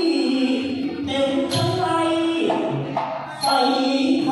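Thai likay leading man singing a drawn-out melodic phrase through a microphone, over instrumental accompaniment. A bright, ringing percussion stroke comes about every two seconds.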